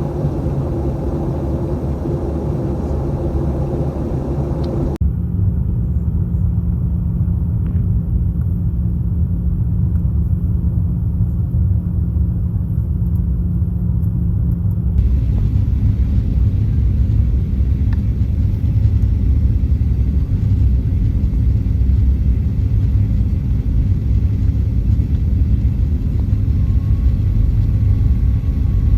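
Steady low rumble of a jet airliner heard from inside the cabin, with a steady low hum in one stretch. The sound changes abruptly twice, about five and fifteen seconds in.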